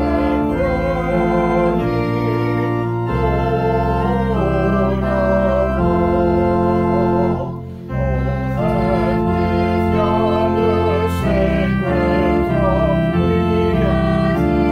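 Organ playing a hymn in slow, sustained chords, with a brief break between phrases about seven and a half seconds in.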